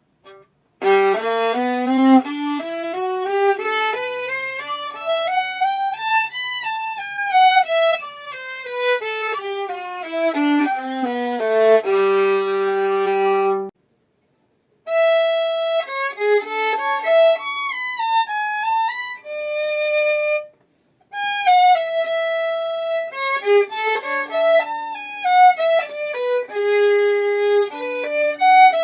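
Violin strung with Alphayue strings, bowed. It plays a scale up from the low G and back down, ends on a held low chord, and after a short pause plays melodic phrases with brief stops between them.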